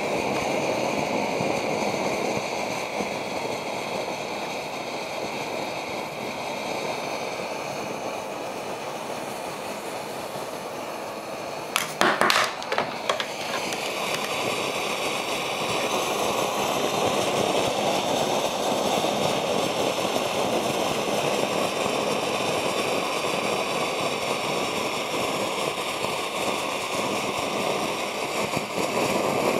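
Homemade copper coil jet alcohol stove burning steadily under a pan of water with a busy roar, a bit like a petrol or gas stove. Its maker suspects the extra noise is partly vapour escaping where the copper pipe passes through the lid. A brief cluster of knocks comes about twelve seconds in.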